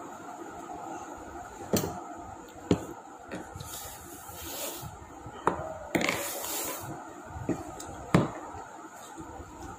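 Close-up eating sounds from a meal of roti and curry: chewing with about six sharp clicks and smacks, and two short hissy rustles in the middle.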